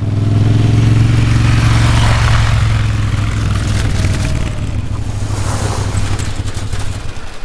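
Motorcycle engine running at a steady pitch, then dropping away near the end.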